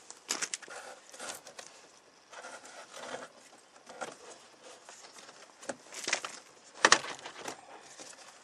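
Interior door trim panel of a Chevy pickup being handled and fitted onto the door: scattered clicks, taps and rustling, with the loudest knocks about six and seven seconds in.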